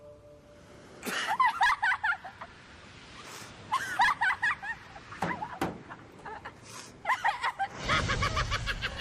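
A woman laughing in short breathy bursts. Near the end a loud deep rumble comes in under more laughter.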